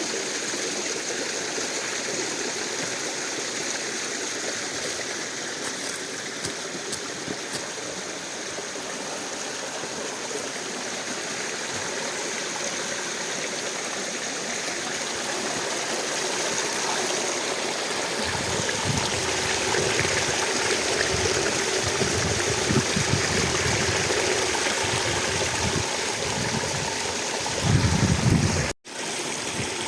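Mountain stream running steadily. From about two-thirds of the way through, uneven low rumbling joins in, and the sound drops out for an instant near the end.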